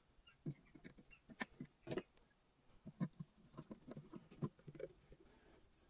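Faint, scattered clicks and taps of small metal tools and parts being handled on a wooden workbench: a T-handled socket wrench and a thin metal rod.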